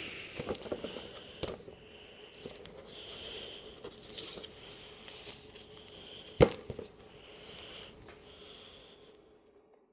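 Faint clicks and rustles over a steady low hiss and hum, with one sharp click about six and a half seconds in.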